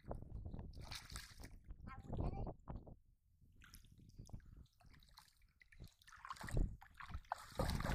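Shallow muddy water splashing and sloshing in uneven spurts as bare hands and feet stir it while grabbing at a catfish.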